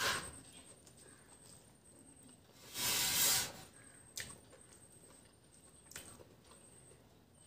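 Close-up eating sounds from a person eating rice and fried water spinach by hand: a smack as a mouthful goes in at the start, and a louder noisy burst of under a second about three seconds in. Later come a few light clicks as fingers mix rice on a steel plate.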